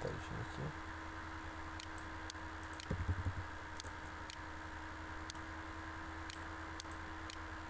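Computer mouse clicking: scattered short sharp clicks over a steady hum, with a brief low thump about three seconds in.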